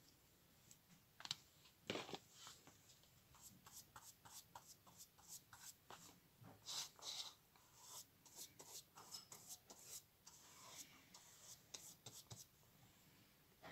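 Faint scratchy strokes of a flat paintbrush spreading clear glue along a paper strip, a quick run of short swipes, after a couple of light knocks in the first two seconds.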